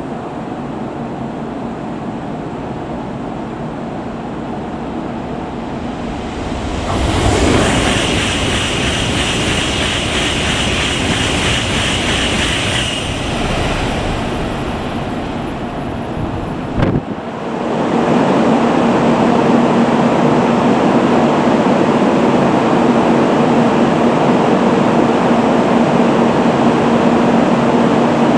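Steady hum and rushing noise of a stopped N700 series shinkansen's onboard equipment. About seven seconds in, a louder rushing sound with a high steady whine swells and fades over about six seconds. A sharp click comes a little after halfway, and after it the hum is louder and steady, with a low steady tone.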